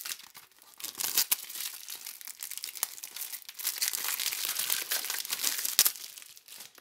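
Plastic shrink-wrap crinkling and tearing as it is peeled off a CD jewel case, with a sharp click a little before the end.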